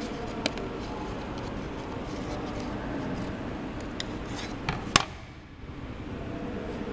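Steady hum of a laser cutting machine running, with a few light clicks and knocks as a laser-cut 4 mm plywood sheet and its loose letter pieces are handled on the metal slat bed; the sharpest click comes about five seconds in.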